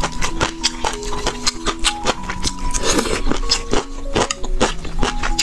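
Close-miked chewing of boneless chicken feet in chili sauce: an irregular run of sharp, moist mouth clicks, with one longer, noisier mouth sound about halfway. Background music with held notes plays underneath.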